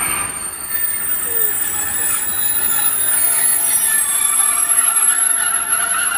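Class 60 diesel locomotive and its freight wagons running slowly past, wheels squealing against the rails in high, wavering tones that grow stronger toward the end.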